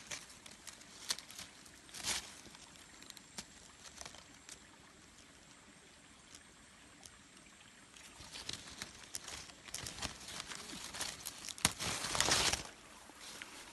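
Leaves and branches rustling as someone pushes through dense undergrowth: irregular short crackly rustles, with a longer, louder rustle near the end.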